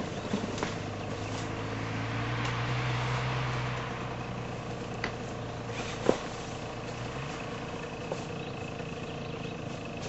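Off-road motorcycle engine idling steadily, its pitch rising a little for a couple of seconds about two seconds in and then settling back. A single sharp knock comes about six seconds in.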